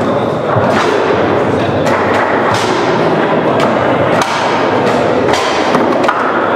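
Foosball play on a Leonhart table: the ball cracks against the players and the table walls, and the rods knock, several sharp hits a second or so apart. Under it runs a steady background din.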